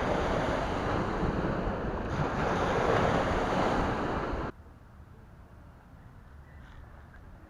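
Waves on a reservoir shore, with wind buffeting the microphone. The noise cuts off abruptly a little past halfway, leaving only faint background sound.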